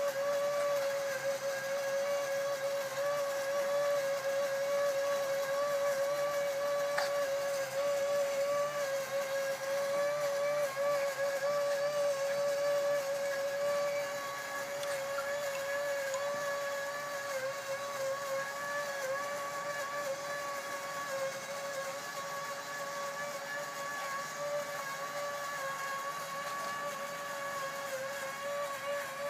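Battery-powered bubble machine's small electric fan motor running with a steady whine that wavers slightly in pitch, a little quieter from about halfway.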